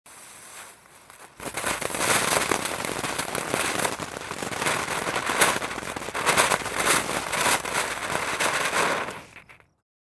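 Firework fountain spraying dense fountain crackles: a faint hiss first, then thick crackling starts about a second and a half in, runs steadily, and dies away just before the end.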